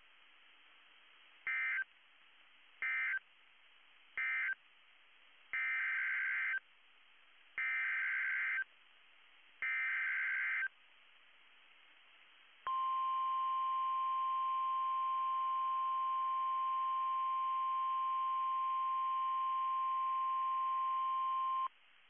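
NOAA Weather Radio's EAS signalling between two tornado warnings. First come three short SAME data bursts, the end-of-message code. Then three longer SAME header bursts announce the next warning, followed by the steady 1050 Hz Weather Radio warning alarm tone for about nine seconds.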